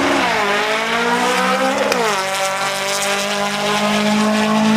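Air-cooled VW Beetle drag car's engine accelerating hard under full throttle. The pitch climbs, drops sharply at a gear shift about two seconds in, then climbs again more slowly.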